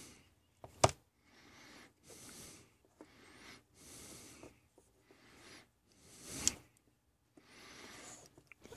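Two short sharp clicks, one about a second in and a softer one about six and a half seconds in, from the plastic parts of a small solar garden light being handled and fitted back together, with faint rustling between.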